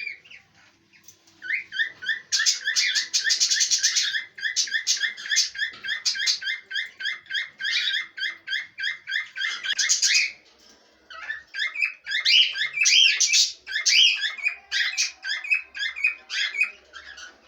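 Pet parrots calling in rapid, repeated high chirps, about five a second, in two long bouts with a short pause between them.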